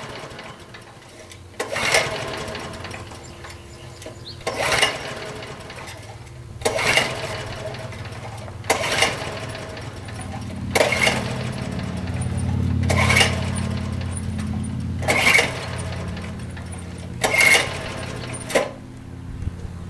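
Honda HR214 lawn mower being pull-started cold on choke: the recoil starter cord is yanked about eight times, roughly every two seconds, each pull a brief whirr of the engine turning over. The engine never fires.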